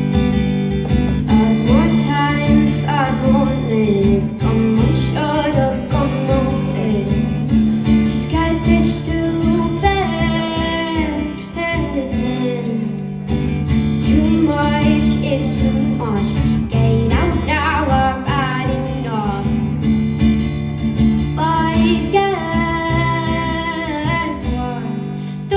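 Acoustic guitar strummed with a female voice singing over it, in a live performance.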